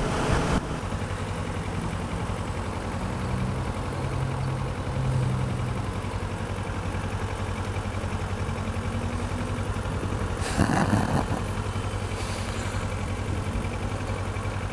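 Kawasaki ER-6f parallel-twin motorcycle engine idling steadily at a standstill. A short, louder rush of noise comes about ten and a half seconds in.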